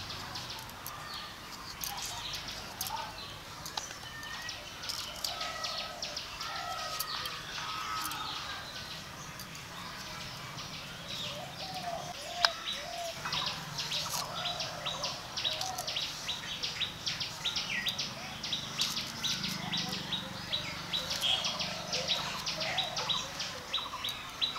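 Small birds chirping and calling continuously, over light crisp snaps of taro stolons being broken and trimmed on a bonti blade. There is one sharp snap about halfway through.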